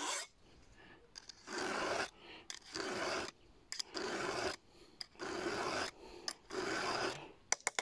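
Hand round file stroking across a chainsaw chain's cutting tooth, sharpening it: five even rasping strokes, each under a second, about one a second, with light clicks of the file against the chain between them.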